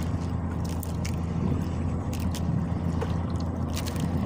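Engine of a small outrigger fishing boat running steadily with a low, even hum, with a few faint clicks and rustles from fish being handled in a plastic sack.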